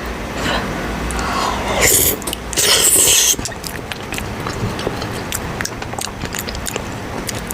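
Close-miked eating: two short, loud, noisy mouth sounds about two and three seconds in as a big bite is taken, then chewing with many small wet clicks.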